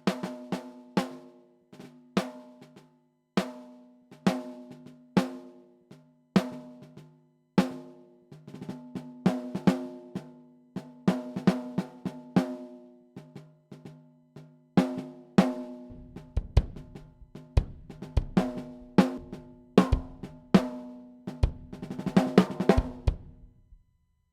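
A solo drum kit track: snare and tom hits with a ringing pitch, getting busier, with the bass drum coming in about two-thirds of the way through. It ends in a fast fill that stops short.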